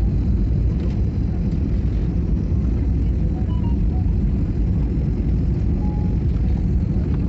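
Airliner cabin noise on the landing approach: the steady low rumble of the jet engines and rushing air, heard from inside the cabin.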